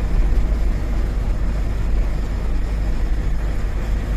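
Steady drone of a Tata 1512 truck's diesel engine and tyre noise, heard from inside the cab while it drives along a highway.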